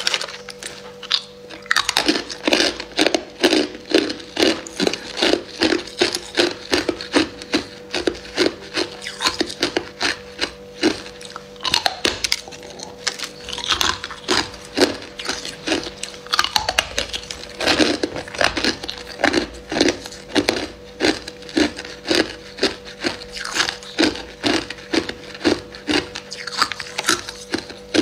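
Hard ice cubes bitten and crunched between the teeth: a steady run of sharp cracks, about two to three a second, over a faint steady hum.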